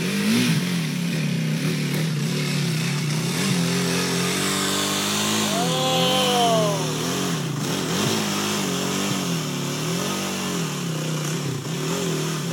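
Dirt bike engine revving up and down over and over under the rider's throttle as the bike climbs a steep rocky, rutted hill, with one sharper, higher rev about halfway through.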